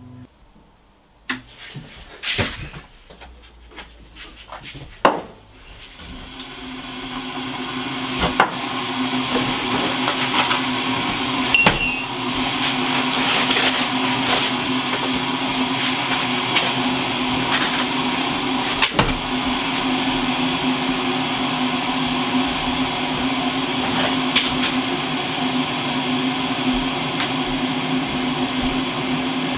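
Electric kettle heating up: a rushing noise builds over several seconds and then holds steady with a low hum. A few knocks and clicks come in the first few seconds.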